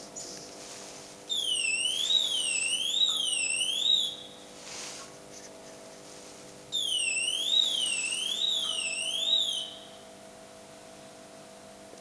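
Electronic warbling alarm signal of a ShchLZ passenger lift, sounding in two bursts of about three seconds each, its pitch sweeping up and down about once a second. A steady low hum continues underneath.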